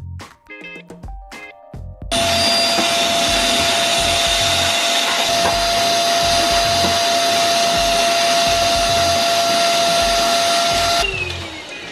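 Vacuum cleaner switched on about two seconds in, running with a loud steady rush and a steady whine, then switched off near the end, its motor whining down as it slows.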